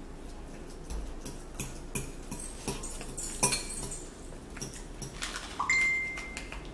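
Close-up eating sounds of ramen noodles being chewed, with scattered clicks and clinks of a metal fork against a ceramic bowl. Near the end comes a short steady high squeak lasting about a second.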